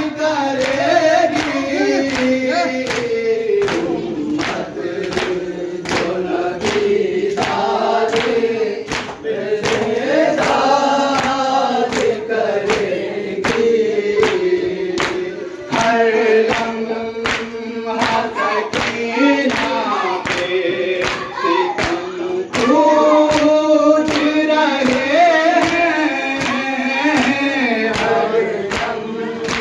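A group of men chants a noha, a Shia lament, together, led by young reciters. Through the chant runs a steady beat of sharp slaps, typical of matam, hands striking chests in time.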